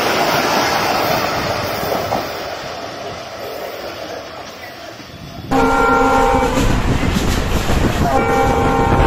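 Passenger train coaches rolling past and fading into the distance. Then, after a sudden change, the loud rush of a moving train heard from a carriage window, with two blasts of a diesel locomotive's multi-tone air horn, about a second each.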